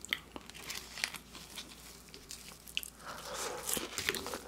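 Close-up crackles and small clicks of gloved hands picking at crisp fried chicken nuggets. From about three seconds in the crunching and rustling grows denser.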